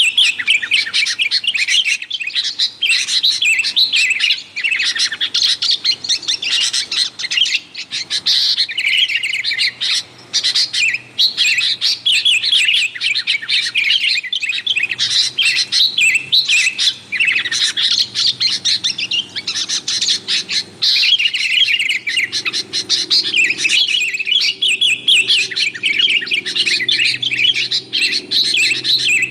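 Sooty-headed bulbuls giving a busy, rapid run of chattering calls, with hardly a pause.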